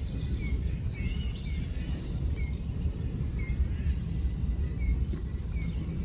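A single bird calling a short, high, falling chirp over and over, about twice a second, over a steady low rumble.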